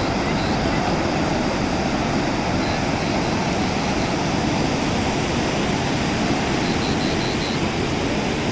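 A fast-flowing, monsoon-swollen river rushing steadily, a continuous even noise of strong current.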